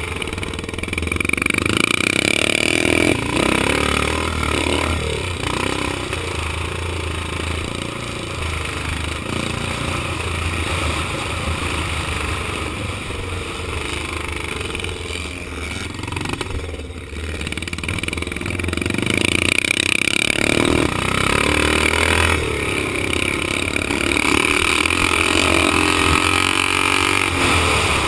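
Vintage 500 cc motocross motorcycle engine, heard from the bike itself as it is ridden hard round a dirt track: it revs up and backs off again and again, and eases off briefly about two-thirds of the way through.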